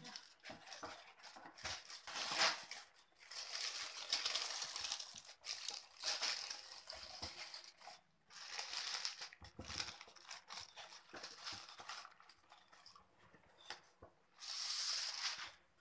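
Thin plastic carrier bag rustling and crinkling in irregular bursts as it is handled around a cake box, with a louder burst near the end.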